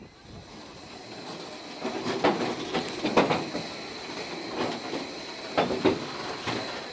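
Narrow-gauge railway carriages rolling, with irregular metallic clanks and knocks roughly a second apart, some in quick pairs, over a steady high hiss.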